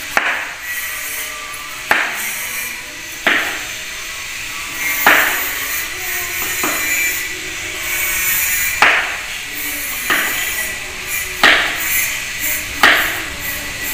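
Chef's knife slicing a green vegetable on a wooden chopping board, the blade knocking on the board about every one and a half seconds, nine times, over faint background music.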